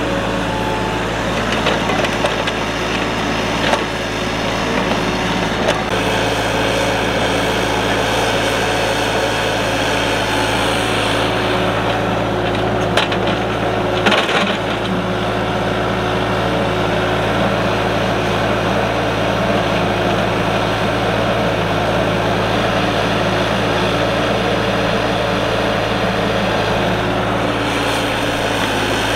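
Kubota mini excavator's diesel engine running steadily at working speed, with a few short knocks from the machine at work, the clearest about halfway through.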